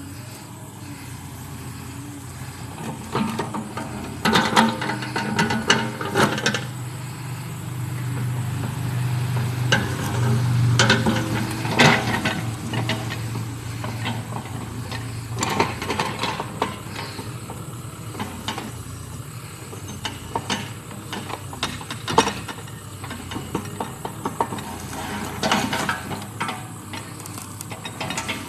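Cat 305 mini excavator's diesel engine running under hydraulic work, its low hum swelling for several seconds near the middle, with the bucket clanking and scraping in dirt and rocks several times.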